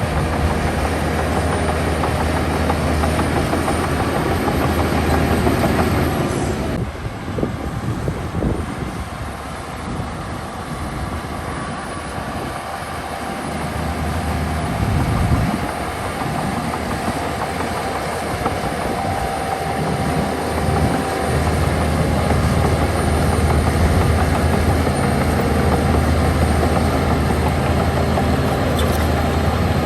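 Diesel engine of heavy tracked earthmoving machinery running under load. About a third of the way in the sound drops and turns uneven and pulsing, then settles back into a steady drone near the end.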